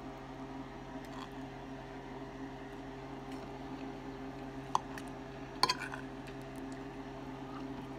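A fork clinks twice on a dinner plate, a little past the middle, over a steady low electrical hum.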